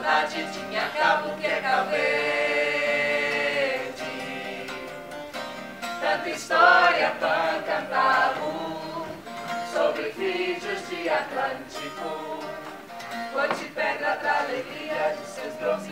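A group of voices singing together, accompanied by a viola caipira. A long note is held from about two to four seconds in.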